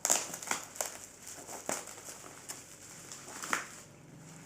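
Cardboard box packaging being handled and opened: irregular crinkling and a few sharp scrapes and crackles, the loudest near the start and about three and a half seconds in.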